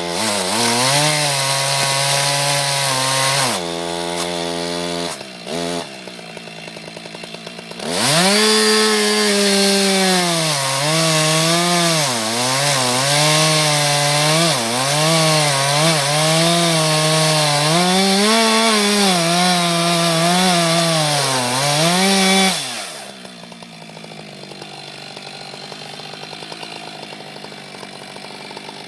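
Chainsaw cutting into wood, its engine pitch dipping and recovering as the chain loads up in the cut. About four seconds in it eases off to a lower steady speed, then revs up again at about eight seconds and cuts until about twenty-two seconds, when it drops to a much quieter level.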